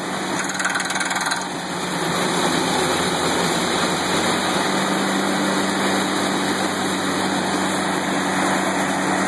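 Towed stump grinder's engine running steadily at speed, with a brief harsher, higher sound in the first second and a half.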